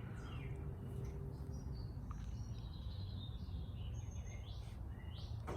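Birds chirping: scattered short calls and whistles, some sliding in pitch, over a steady low background rumble.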